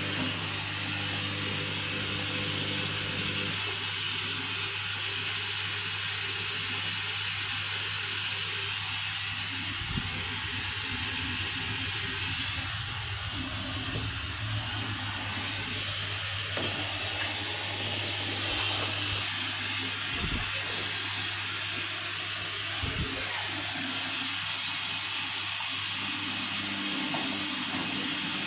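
Vestel CM8710 8 kg washing machine taking in water at the start of its delicate/wool 30° programme: a steady hiss of water flowing in through the inlet, over a constant low hum.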